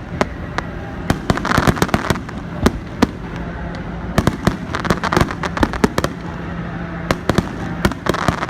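Fireworks going off: many sharp bangs and pops in quick, irregular clusters, with spells of dense crackling about a second and a half in and again near the end.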